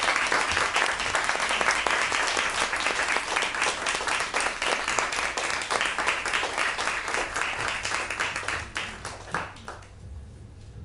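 Audience applauding, a dense clapping that thins out and dies away about nine to ten seconds in.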